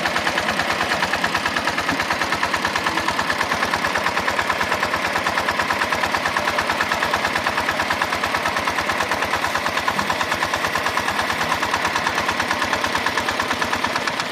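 Diesel engine of an irrigation water pump running steadily, with a fast, even firing beat.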